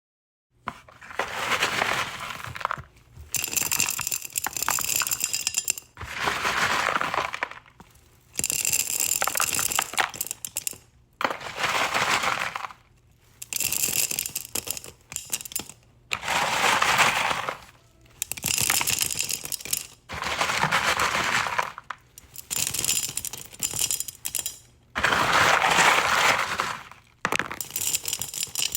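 Rocks being scooped up and dropped into a glass jar, clattering and clinking against the glass. It comes in about a dozen separate rounds of a second or two each, with short pauses between them, some rounds brighter and more ringing than others.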